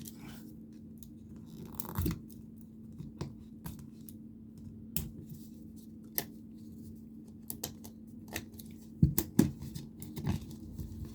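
Hands working at the sealed seam of a plastic egg-shaped container, trying to break it open: scattered clicks, scrapes and tearing of plastic, busiest about nine seconds in, over a faint steady hum.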